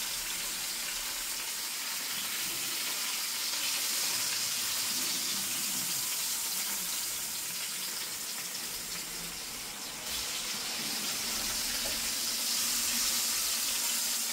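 Fish steaks sizzling steadily as they sear in hot oil in a cast-iron skillet.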